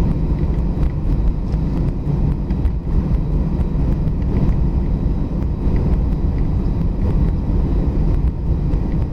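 Cabin noise inside an Airbus A319 taxiing after landing: a steady low rumble from the jet engines at taxi power and the airframe rolling over the apron.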